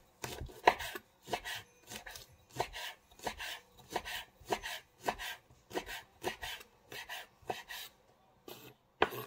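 Chef's knife slicing wood ear mushroom on a wooden cutting board: the blade knocks on the board in steady strokes about two a second. The cutting stops near the end.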